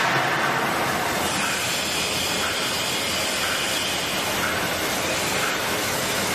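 Toilet roll and kitchen towel packing machine running: a steady mechanical noise with a faint repeated sound about once a second.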